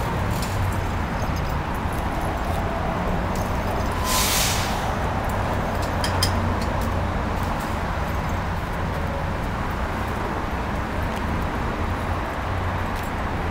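Steady low rumble of city traffic, with a short hiss about four seconds in.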